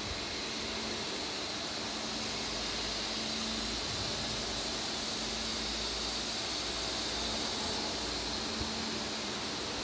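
Steady hiss and low hum of a large factory hall's background noise, ventilation and distant machinery, with no single machine standing out.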